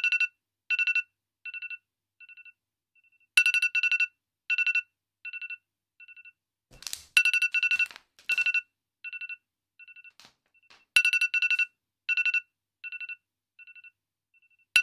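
Electronic beeping tone in a repeating pattern about every four seconds: a quick cluster of loud high beeps, then a trail of spaced beeps that grow fainter like echoes. A brief burst of noise comes about seven seconds in.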